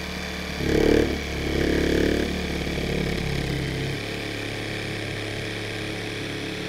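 Proxxon Super Jigsaw running, its blade cutting through a dried gourd shell, with a steady motor hum and two louder stretches around one and two seconds in.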